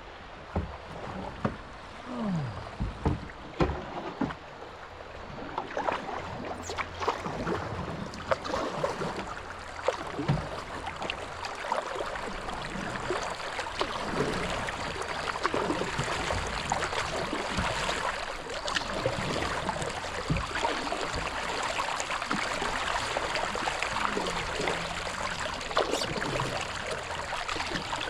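Flowing river water rushing and gurgling around a small boat, with scattered splashes and knocks in the first few seconds; from about six seconds in the rush of water grows louder and steadier.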